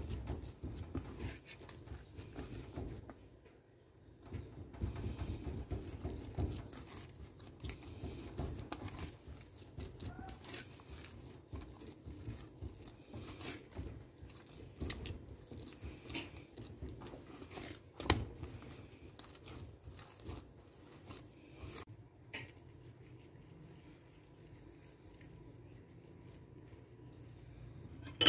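Hands kneading and squeezing soft, wet bread dough in a metal pot: irregular squishing and patting with small clicks, softer after about twenty-two seconds. A sharp knock comes about eighteen seconds in and another near the end.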